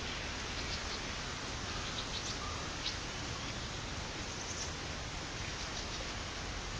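Steady outdoor hiss with a few faint, short, high bird chirps scattered through it.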